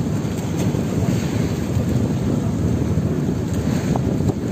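Steady low rumble aboard a bamboo-outrigger fishing boat at sea: wind on the microphone over the boat's running engine.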